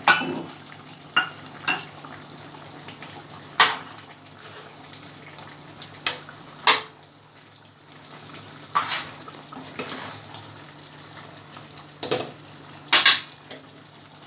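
A spoon stirring a thick chicken and pumpkin curry in a pan, knocking and scraping against the pan in sharp clinks every second or two, over the low sizzle of the simmering curry and a faint steady hum.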